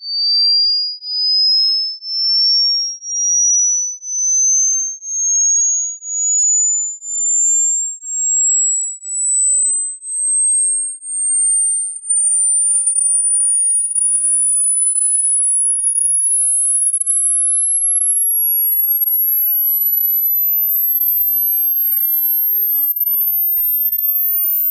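A pure sine test tone sweeping slowly and steadily upward from a high whistle to a very thin, very high pitch near the top of human hearing: a hearing-test sweep for finding the highest pitch a listener can still hear. It pulses about once a second for the first half, then holds steady.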